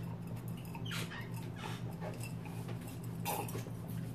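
A person sipping from a wine glass: a few soft, short sips and mouth sounds, the clearest just past the three-second mark, over a steady low hum.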